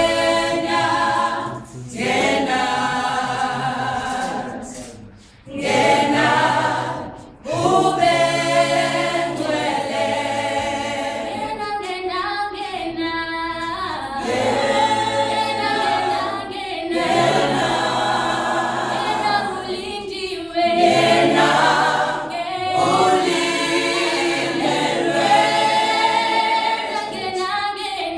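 Small mixed choir of women and men singing a cappella in close harmony. The first phrases are broken by short pauses, then the singing runs on in held chords.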